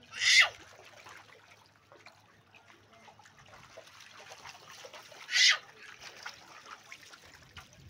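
Bare feet pattering and splashing through shallow water on a concrete floor. Two short loud sounds stand out, one just after the start and one about five seconds in.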